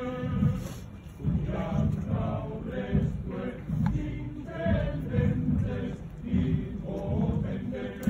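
A group of mostly men's voices chanting together in a slow religious chant, in phrases broken by short pauses.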